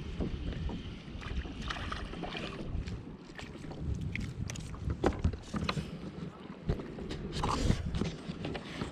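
Wind buffeting the microphone and water lapping around a kayak, with scattered short clicks and knocks while a small fish is reeled in on a light spinning rod and reel.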